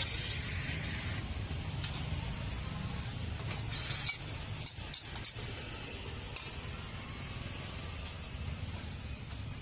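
Metal spatula scraping and clinking against a wok as seafood is stir-fried, with short bursts of sizzling hiss near the start and about four seconds in, over a steady low rumble.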